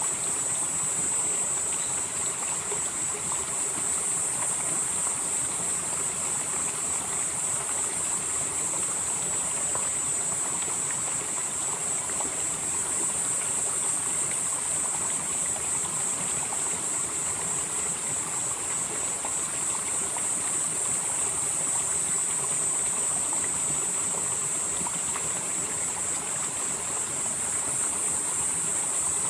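Mountain valley stream flowing and splashing steadily over rocks, with a high, even chirring of insects over it that swells and eases slowly.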